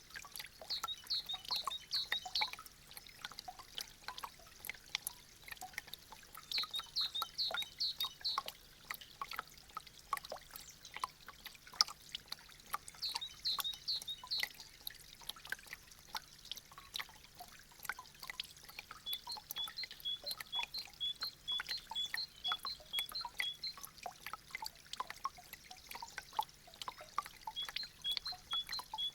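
Meltwater dripping from melting icicles: a steady, irregular patter of many drips and small trickles. High chirps sound in short runs, then repeat evenly from about two-thirds of the way through.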